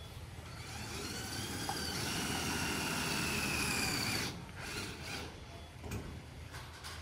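Electric drill driving a screw into aluminium composite panel: the motor whine climbs, then sinks slowly in pitch as the screw bites, and cuts off just after four seconds. A few light clicks and knocks follow.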